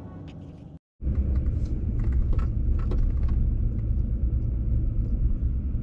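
Music ends just under a second in, then low, steady road and engine rumble of a car heard from inside the cabin while driving, with a few light ticks.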